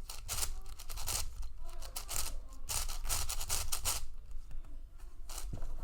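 Plastic clicking and scraping as the layers of a MeiLong V2 7x7 speed cube are turned by hand, in quick, irregular clusters.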